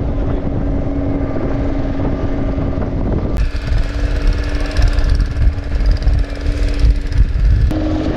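Passenger motorboat's engine running steadily with a low drone. For a few seconds in the middle, wind and rushing water are louder over it.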